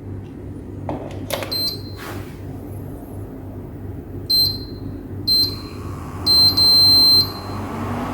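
Geepas GIC6920 infrared cooker's control-panel buzzer beeping after it is plugged in: three short beeps, then one long beep of about a second, with a few clicks before them. The cooker powers up and responds normally, no longer stopped by its E3 error. A low hum comes up near the end.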